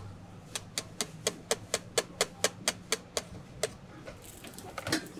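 Wire whisk clicking against a stainless steel mesh strainer while whisking egg batter, a steady about four clicks a second that stop a little under four seconds in, with a short clatter near the end.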